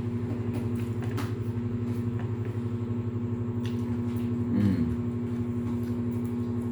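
Steady low mechanical hum of a running motor, a fast-pulsing drone with a fixed tone, with a few faint clicks over it and a brief wavering tone about four and a half seconds in.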